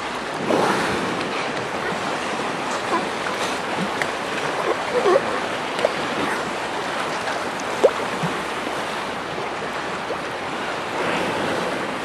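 Choppy sea water lapping and splashing, with wind. A few short calls stand out over it about five and eight seconds in.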